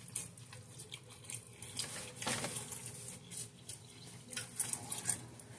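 A person quietly chewing a mouthful of ham and provolone sub sandwich, with irregular short mouth clicks.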